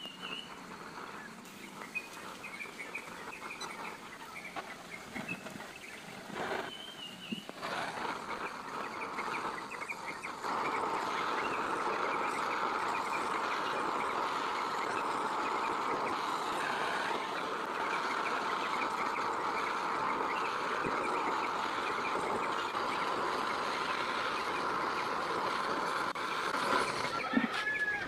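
Gas torch flame hissing steadily into a clay crucible as it melts gold powder; about ten seconds in, the hiss steps up louder as the flame is turned up. Birds chirp briefly now and then.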